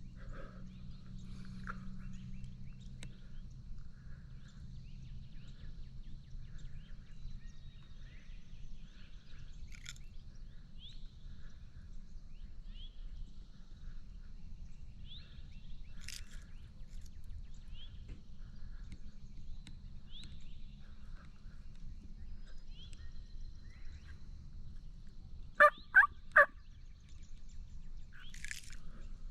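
Turkey calls: a quick series of three loud, sharp notes near the end, with fainter turkey sounds earlier, small birds chirping here and there, and a steady low rumble throughout.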